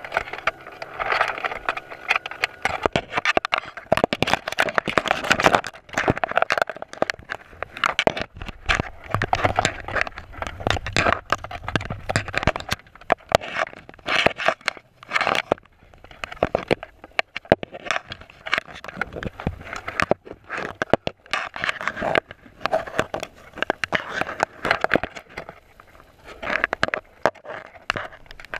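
Dense, irregular crackling, clicking and scraping heard underwater through a GoPro housing, as a crab clambers over the crab net's wire mesh and picks at the bait close to the camera.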